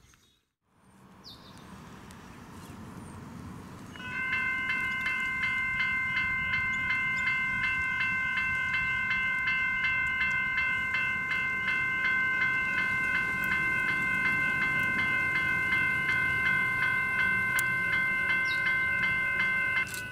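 Level crossing's General Signals electronic bells start about four seconds in, ringing with a rapid, even strike as the crossing activates for an approaching train. One of the bell tones stops near the end, as the boom gates come down.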